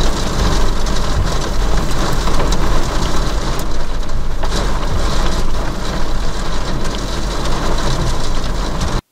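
Heavy wind-driven storm rain lashing a car's windscreen and body, with a steady low rumble underneath and scattered sharp ticks of small hail. It cuts off suddenly near the end.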